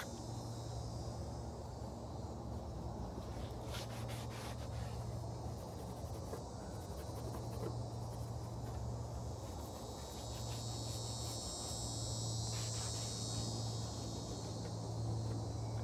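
Insects chirring steadily in a high, even band, swelling somewhat near the end, over a steady low hum. A few light clicks come about four seconds in and again near thirteen seconds.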